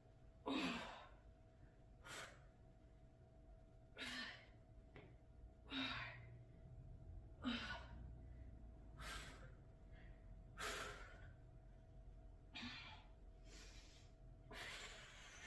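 A woman's faint, sharp exhaled breaths, one about every second and a half, some opening with a short low grunt-like sound: exertion breathing with each rep of a lying kettlebell press. A faint steady hum runs beneath.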